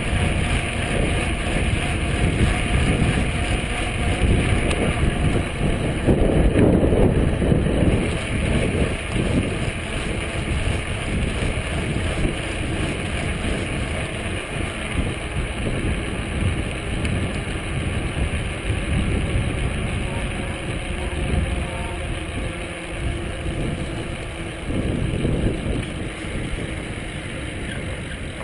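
Wind rushing over the microphone and tyre rumble on asphalt from a bicycle riding along a road. The noise is steady, with a louder gust about six seconds in.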